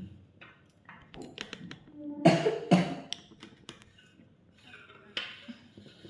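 Light clinks and taps of utensils and dishes as food is served, with two short louder sounds about two and a half seconds in.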